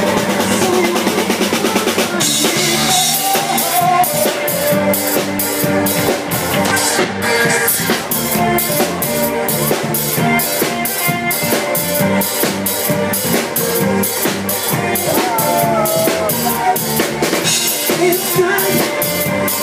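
Live rock band playing. The drum kit drives a steady, busy beat of kick, snare and cymbals under electric bass and guitar, with the drums coming in hard about two seconds in.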